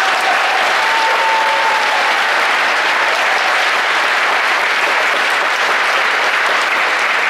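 A congregation applauding: a steady, dense clatter of many hands clapping.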